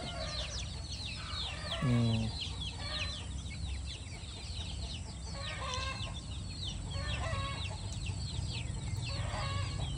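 A flock of young KUB kampung chickens peeping without a break: many short, high chirps, each falling in pitch, with a few lower clucking calls among them.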